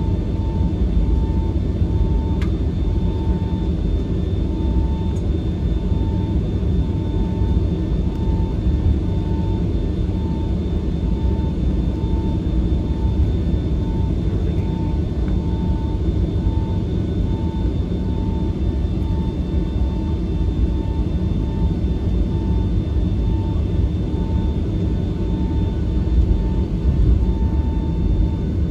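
Cabin noise inside a Boeing 757-300 taxiing: a steady low rumble from the engines at idle and the aircraft rolling. Over it sit a faint steady high whine and a faint tone that pulses on and off about one and a half times a second.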